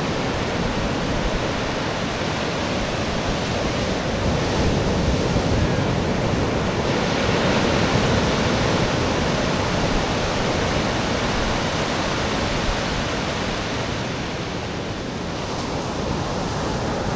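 Sea surf: waves washing onto a beach in a steady rushing noise that swells a few seconds in and eases near the end.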